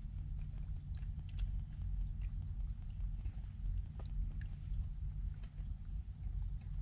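Wet mud squelching with scattered soft clicks and scrapes as a gloved hand and a metal crab hook probe down a mud crab's burrow in mangrove mud. A thin steady high tone and a low rumble run underneath.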